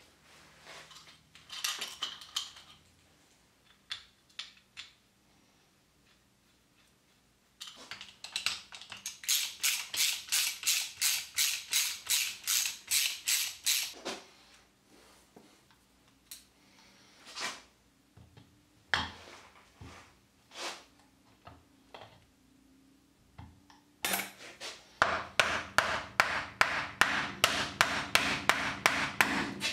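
Rapid hammer blows, about four a second, in two runs. The first run is sharp, bright taps; there are a few single knocks between the runs. The second, louder run, near the end, is a hammer striking a wooden block held on top of a lathe chuck, driving the chuck onto the spindle of a homemade gearbox dividing head.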